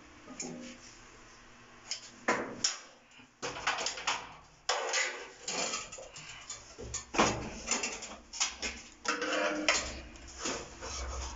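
Irregular knocks, scrapes and rustles of someone moving about and handling metal fittings at the elevator's gearless motor, starting about two seconds in.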